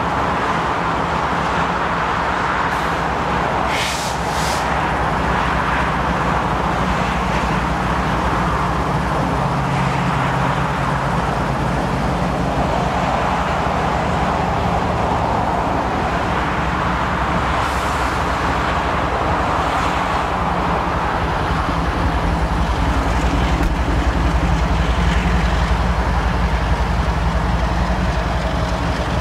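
BNSF coal train rolling past, its rear distributed-power locomotive, an ES44AC diesel, running among loaded hopper cars with a steady rumble of steel wheels on rail. The rumble grows louder and deeper over the last several seconds.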